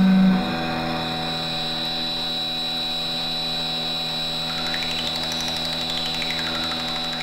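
Experimental noise music from a 7-inch flexi-disc: a steady, machine-like drone of several held tones. A loud low tone cuts off just after the start, and a high whistling tone rises and falls over about two seconds near the end.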